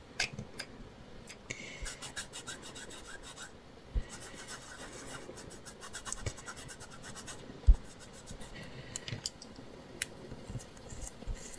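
A foam finger dauber dabbing and rubbing ink through a plastic stencil onto paper: a steady run of soft scratchy taps and rubs. Two low thumps stand out, about four seconds in and again near eight seconds.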